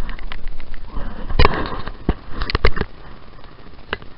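Several sharp knocks and clicks over a steady hiss: one about a second and a half in, a quick cluster between two and three seconds, and one more near the end.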